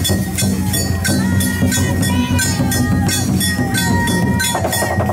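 Danjiri festival float music: metal bells or gongs struck in a quick steady rhythm, about three or four strikes a second, over a dense low din with calling voices.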